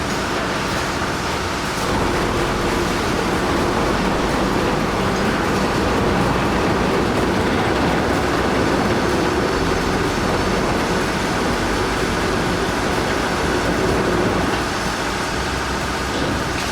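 Heavy machinery running with a loud, steady, noisy drone, growing a little louder about two seconds in.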